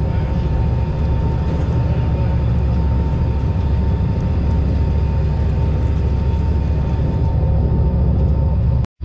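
Party boat's engine running in a steady low drone at slow docking speed, with a faint steady whine above it. It cuts off abruptly just before the end.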